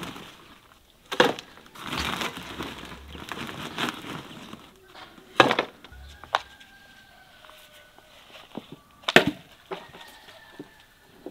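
Potting soil being scooped by hand from a woven plastic sack into a plastic flower pot: gritty rustling of soil and sack, with three sharp knocks.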